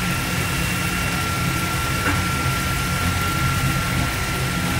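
Steady low machine hum with a thin, constant high whine over it, and a faint tick about two seconds in.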